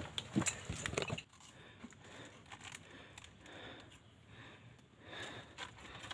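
A hiker moving along a mountain trail: a few sharp clicks and knocks in the first second, then faint soft steps and rustling.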